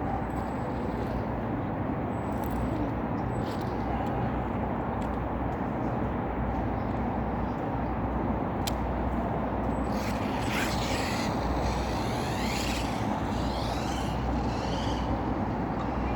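Electric motors of a Lego Technic RC buggy running, under a steady rumbling hiss. From about ten seconds in, high whines rise and fall several times as the motors rev up and down.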